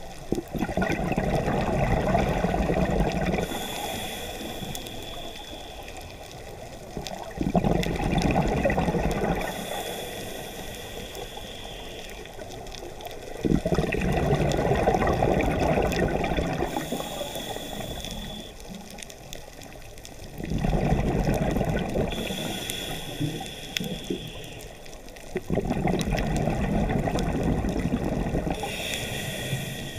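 A scuba diver breathing through a regulator underwater: a short hiss on each inhale, then a longer rush of exhaled bubbles, about five breaths, one every six seconds or so.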